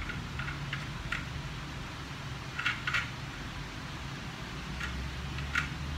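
Small clicks and taps of plastic and metal parts as a ring light stand's pole and mounting head are handled and fitted, a few scattered over several seconds, with a closely spaced pair about two and a half to three seconds in. A steady low hum runs underneath.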